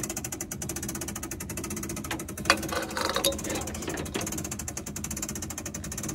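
Fast, even mechanical clatter from an equipment lift being worked, with a sharp knock about two and a half seconds in.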